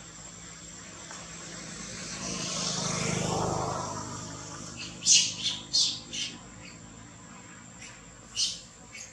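A motor vehicle passes, its low engine hum swelling and fading around three seconds in, over a steady high insect whine. Then short, sharp high chirps: four in quick succession about five seconds in, the loudest sounds here, and one more near the end.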